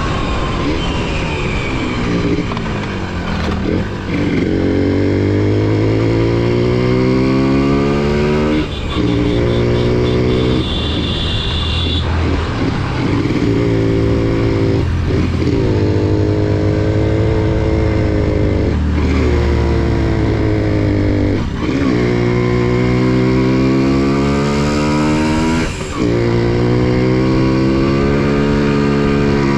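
Honda CDI-100 motorcycle engine and exhaust running hard, the revs climbing again and again, each climb cut off by a short dip, about every three to four seconds.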